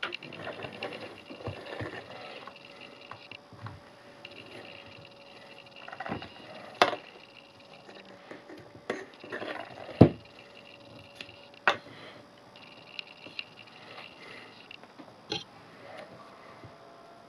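Handling noise from a Lightning-to-SD card reader, its Lightning plug and an SD card on a wooden table and against an iPad: scattered sharp plastic clicks and knocks, the loudest about ten seconds in, over a faint steady tone.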